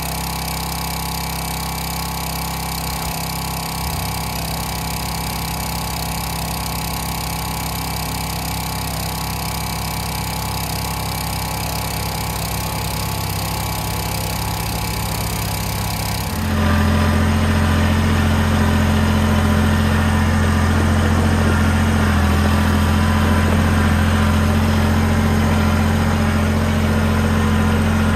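Kubota BX23S compact tractor's three-cylinder diesel engine running steadily, carrying a load of split firewood on its pallet forks. About two-thirds of the way through it gets louder and deeper.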